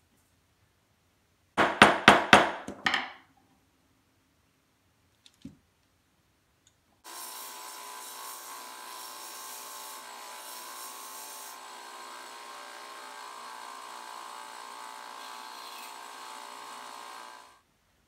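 About five quick, sharp hammer taps on a punch set into wood. Then, from about seven seconds in, a small benchtop belt sander runs steadily for some ten seconds while thin wooden sticks are ground to points against the belt, stopping shortly before the end.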